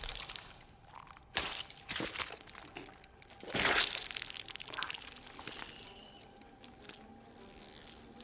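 Sound effects for a giant spider moving over rock: a string of sharp clicks and crunches, with a louder, longer hiss about three and a half seconds in.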